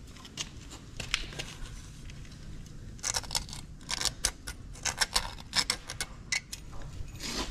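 A small flat steel scraper scraping round the O-ring groove at the bottom of a Farmall F14 engine block's cylinder bore, clearing out old O-ring rubber and dirt. Short, irregular metal-on-metal scratches, more frequent in the second half.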